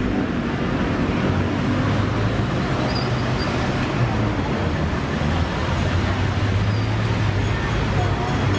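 Steady street noise: a low hum of traffic under a general hiss.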